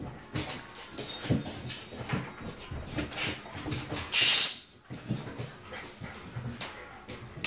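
Puppies playing and scuffling, with small whimpering dog sounds and irregular knocks and scuffles of paws and bodies. A brief, loud hissing noise comes about four seconds in.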